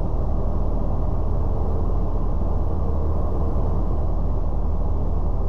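Steady cockpit drone of the Citabria 7ECA's Lycoming O-235 four-cylinder engine and propeller, mixed with airflow noise, throttled back to idle for a gliding descent.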